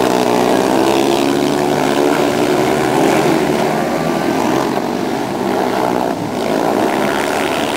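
Speedway motorcycles with 500cc single-cylinder methanol engines racing through a bend, the engine note rising and falling as the riders throttle through the slide, loud and continuous with a brief dip about six seconds in.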